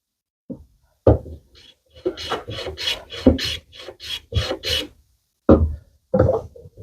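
Hand plane taking short bevelling strokes along the edge of a hardwood slat, each stroke a brief scraping shave of wood. There are a few separate strokes, then a quick run of about eight strokes in a row, then two more near the end.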